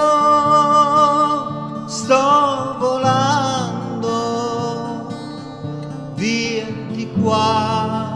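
A man singing long held, wavering notes over his own acoustic guitar.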